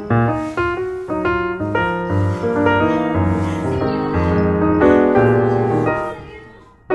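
Background piano music, chords over a bass line, fading out near the end.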